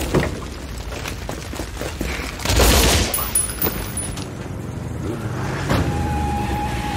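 Rapid rifle gunfire, with irregular shots and one loud burst about two and a half seconds in. A steady high tone comes in near the end.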